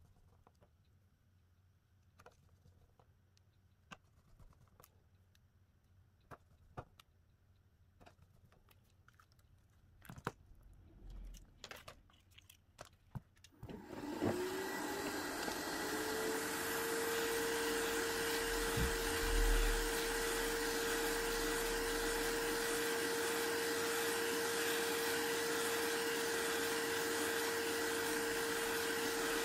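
Scattered small clicks and taps, then about halfway through an electric blower motor switches on. Its whine rises in pitch over a couple of seconds and settles into a steady hum over a strong rush of air.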